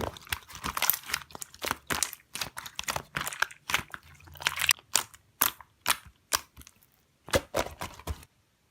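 Slime being pressed and kneaded by hand: a quick, irregular run of sharp crackles and crunches that stops suddenly near the end.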